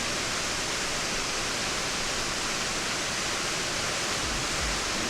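Waterfall's steady, even rush of falling water. A faint low rumble comes in near the end.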